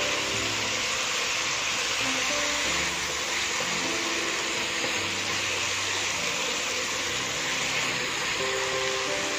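Stir-fry sizzling steadily in a non-stick wok as it is stirred with a wooden spatula, under instrumental background music of short held notes.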